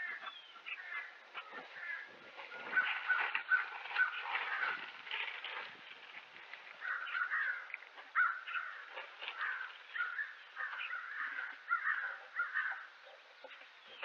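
Wild birds calling in quick, repeated runs of short notes, several overlapping, with a few faint knocks early on.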